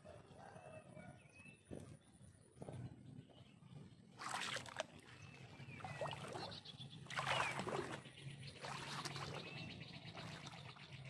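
Water splashing and trickling, with louder splashes about four, seven and nine seconds in, over a faint low hum and a few faint chirps.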